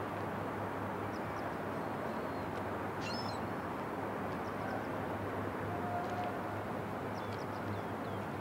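Steady outdoor background noise with a constant low hum, and faint bird chirps several times over it.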